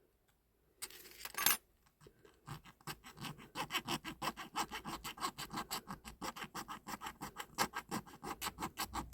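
A small hand file rasping back and forth on a diecast zinc-alloy toy car body in quick, even strokes, several a second, smoothing rough edges before priming. About a second in there is a brief rattle before the filing starts.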